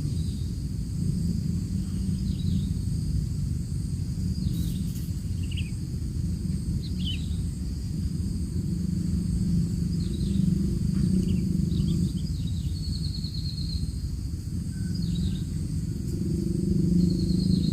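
Outdoor ambience: a steady low rumble under a high, steady insect drone, with short bird chirps scattered through and a quick rattling trill twice in the second half.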